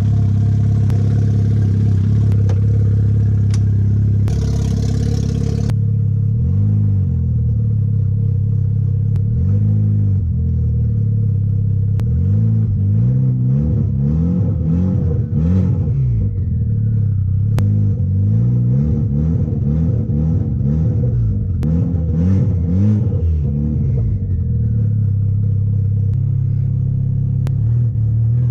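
Built, big-turbo 2.0-litre turbocharged four-cylinder running, revved in a long series of short blips that rise and fall in pitch, then settling back to a steady idle. The engine is running badly with a cam timing fault. Wind buffets the microphone during the first few seconds.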